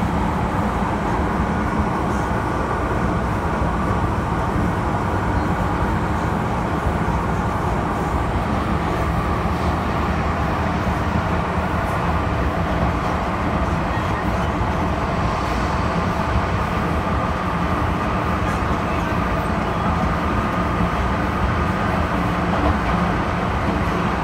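Inside a moving MTR M-Train metro car, running steadily through the tunnel: an even rumble of wheels on rail with a steady hum from the train's motors, unchanging in level.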